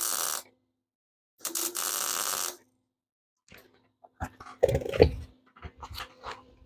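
Angle grinder working metal in two short bursts, each about a second long, then metal tools clattering on the workbench with one heavy clunk about five seconds in.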